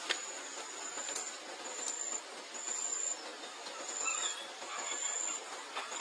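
Repeated high-pitched insect chirps, each about half a second long and coming about once a second, over a steady hiss.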